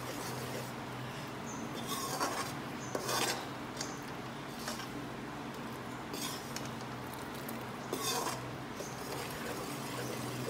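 A spatula stirring and scraping wheat flour roasting in ghee around an aluminium kadhai, with about half a dozen irregular scrapes against the pan. A steady low hum runs underneath.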